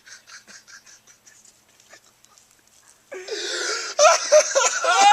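A person sobbing theatrically: quick, faint, gasping breaths, then about three seconds in a loud, wavering wail.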